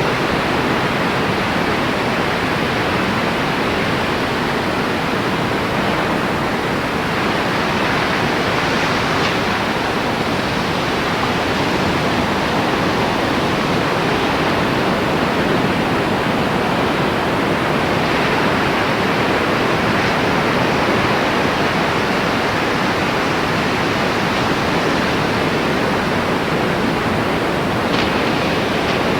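Strong wind blowing across the microphone: a steady, loud rushing noise that swells and eases slightly.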